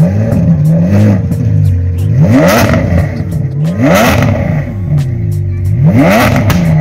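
Car engine being revved in several short throttle blips, each rising and falling in pitch, over a steady idle.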